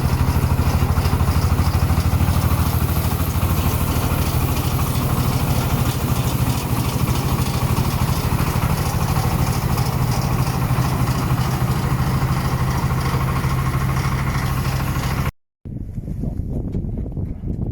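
Engine of a tricycle silage feed mixer-spreader running steadily, with a low hum and rapid even pulsing. About fifteen seconds in it cuts off abruptly, and after a moment a quieter, lower sound follows.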